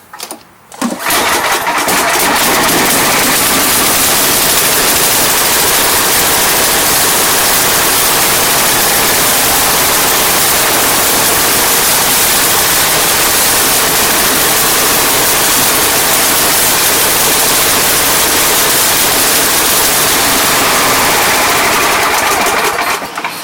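Tecumseh engine of a White MTD 8.5 hp snow blower starting about a second in, then running loud and steady, dropping off near the end.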